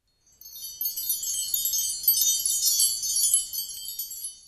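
Wind-chime sound effect: many high, bright chimes tinkling and overlapping, starting about a quarter second in and fading out near the end.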